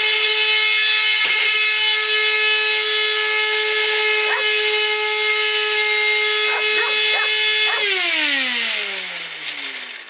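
Upright vacuum cleaner's motor running at a very high, steady, screaming whine, far too loud for the machine. About eight seconds in it is switched off and winds down, the whine falling in pitch and fading. A dog lets out a few short, rising whines over it.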